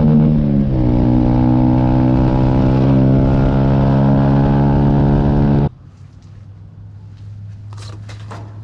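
Engine running steadily, its pitch dropping slightly about half a second in, then cut off abruptly near the end. A faint low hum and a few light clicks follow.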